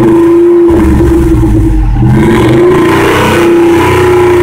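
Ford F-250 pickup engine running, heard right at the exhaust pipe: a loud, steady exhaust note that sags about two seconds in and climbs back up.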